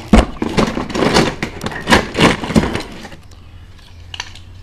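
Die-cast toy cars clattering and knocking against each other as a box of them is rummaged through, a rapid run of sharp metallic clacks for about three seconds, then a couple of single clicks near the end.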